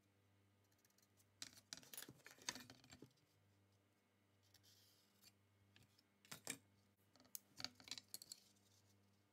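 Faint clicks and scrapes of rulers, a metal square and a marker being handled on a pine board and cutting mat, in three short spells: about a second and a half in, around six and a half seconds, and near the end.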